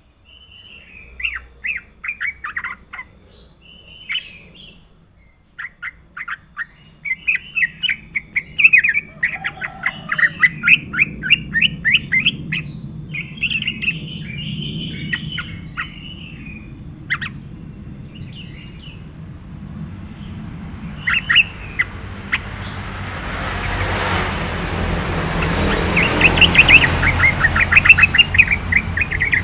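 Yellow-vented bulbul singing in bursts of quick, loud chirping notes. A broad rushing noise swells up beneath the song from about two-thirds of the way through.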